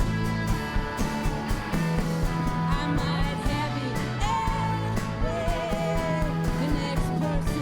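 Live indie rock band playing a song: drums keep a steady beat under sustained bass and electric guitar, with a wavering, sliding melodic line over the top.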